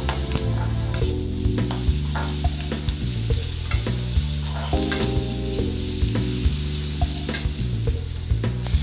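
Chopped onions and curry leaves sizzling in hot oil in an aluminium kadai, stirred with a perforated metal spoon that scrapes and taps against the pan many times. Soft background music with steady low notes plays underneath.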